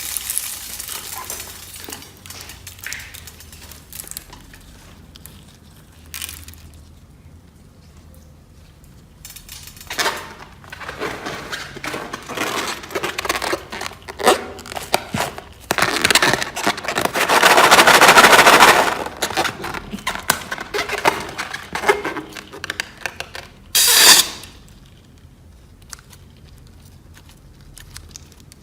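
Clear slime full of beads being squeezed and mixed by hand: irregular crackling and clicking. There is a long, dense, loud stretch of crackling about two-thirds of the way through and a short, sharp burst a few seconds before the end.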